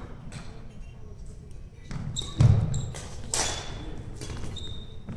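Badminton rally: rackets striking the shuttlecock with sharp clicks, court shoes squeaking briefly on the wooden floor, and players' footfalls, the loudest a heavy thud about two and a half seconds in.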